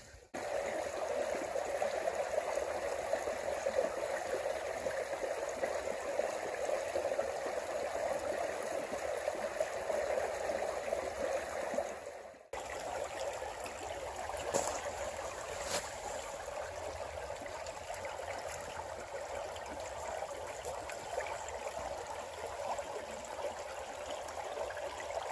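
Creek water running and trickling, a steady rushing sound. It cuts out for a moment about twelve seconds in and comes back a little softer, with two faint clicks soon after.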